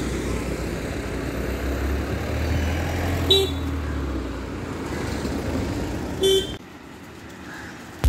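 Road traffic noise with a steady low rumble and two short horn toots about three seconds apart. The noise drops suddenly near the end.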